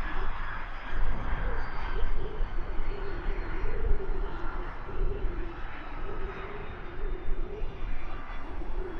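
Business jet's turbofan engines running at low power, a steady whine that wavers a little in pitch, under gusty wind buffeting the microphone.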